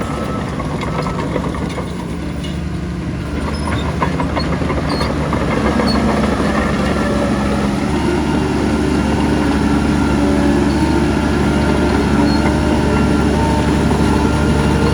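Heavy diesel earthmoving machinery running, with a steady engine drone that grows louder over the first few seconds and then holds.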